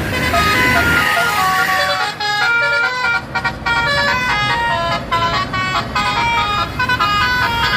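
Tour bus telolet 'basuri' horn playing a fast melody of short notes that jump up and down several times a second, over the low rumble of the bus.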